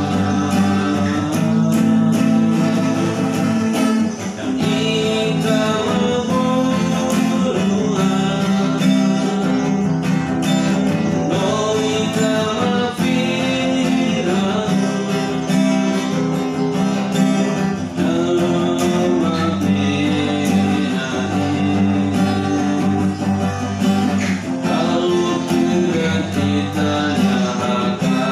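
Steel-string acoustic guitar strummed and picked in steady chords, accompanying a man singing a slow Tetum-language song.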